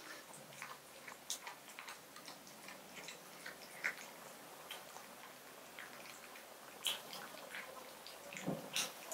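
A cat chewing and licking raw beef: irregular small clicks and smacks, a few a second, with a louder pair near the end.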